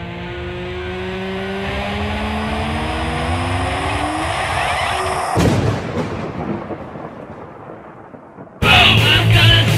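A swelling rush of noise with slowly rising tones builds for about five seconds, then breaks off in a sudden crash followed by a fading rumble. Near the end, loud rock music cuts in.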